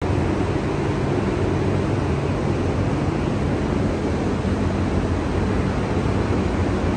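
Jaguar F-Type's engine idling with a steady, even low hum.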